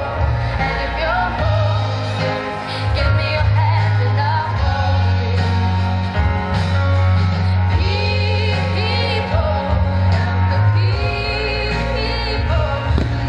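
Background pop music with a sung vocal line over a steady bass.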